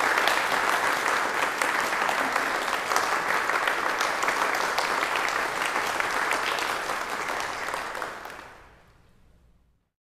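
Audience applauding after a talk, a dense steady clapping that fades away over the last couple of seconds.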